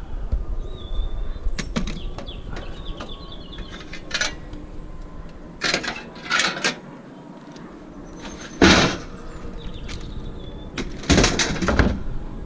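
Scrap metal pieces clanking as they are handled and tossed aside while being sorted: a string of separate clanks, the loudest about two-thirds of the way through and a double clank near the end, over a steady low rumble.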